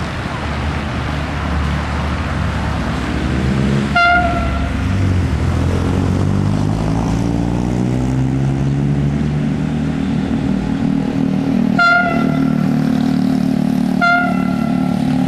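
Narrow-gauge diesel railcar pulling away from a stop: its engine rises steadily in pitch as it takes power, and its horn gives three short toots, one about four seconds in and two more near the end.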